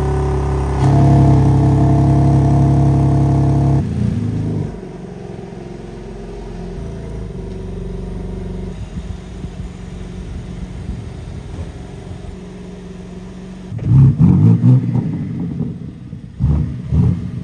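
BMW M3 G80's twin-turbo straight-six running at idle through its stock quad exhaust, steady and loud for the first four seconds, then a quieter steady rumble. Near the end come a few short, louder bursts of throttle blips.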